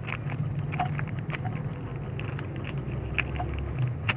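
Scattered light clicks and crackles of handling, over a steady low background hum.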